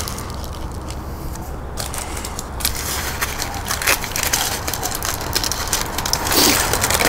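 Crinkling and crackling of packaging as fire starters are handled and unwrapped: a low steady background, then many small irregular crackles from about two and a half seconds in, getting busier near the end.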